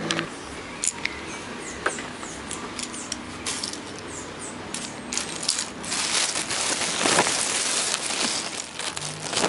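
Plastic mixer knobs clicking against each other as they are dropped into a plastic bag. There are a few sharp clicks in the first two seconds, then the bag is handled and crinkles for the rest.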